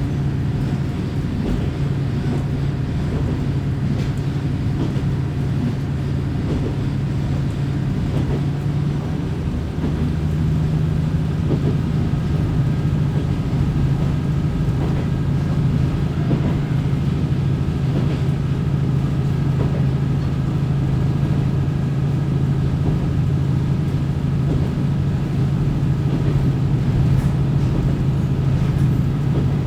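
Kominato Railway diesel railcar under way, heard from inside the car: a steady low engine drone with running noise. About ten seconds in the engine note steps up and grows louder as the engine takes more load, and a faint higher whine joins it.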